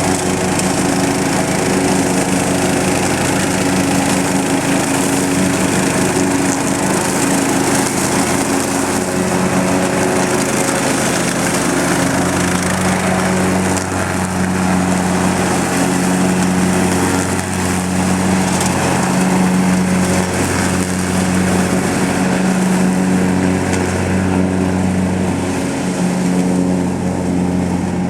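Lawn mower engine running steadily under load, its all-weather blade chewing up and mulching dry leaves. The engine note wavers a little as the load changes.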